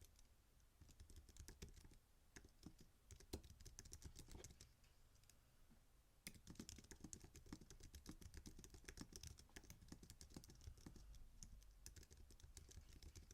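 Typing on a computer keyboard: a fast run of faint keystrokes, with a pause of about a second near the middle before the typing picks up again.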